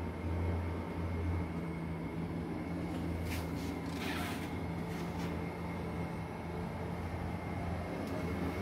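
Steady low hum of a window-type air conditioner running, with a faint high whine over it. A couple of brief soft rustles come about three and four seconds in.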